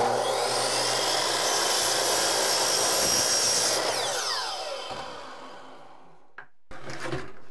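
DeWalt miter saw starting up and cutting straight across a length of baseboard moulding. After about three and a half seconds it is released and the motor winds down with a falling whine, fading out a couple of seconds later.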